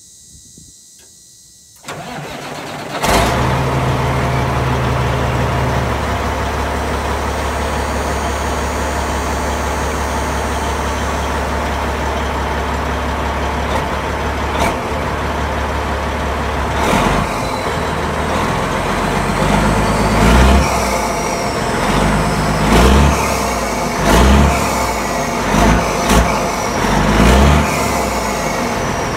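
Diesel engine of a 2005 Freightliner Columbia 120 sounding through a 6-inch Dynaflex straight exhaust stack: it cranks briefly about two seconds in, catches with a jump in loudness and idles steadily with a deep note, then is revved in several short blips over the last ten seconds or so.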